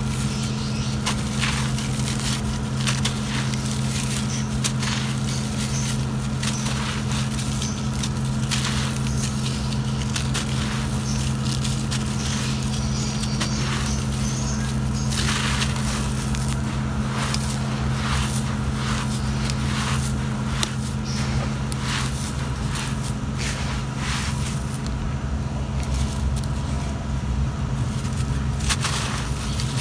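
Hands crushing and crumbling dry, gritty clumps of soil, with many irregular crunches and crackles. A steady low hum runs underneath.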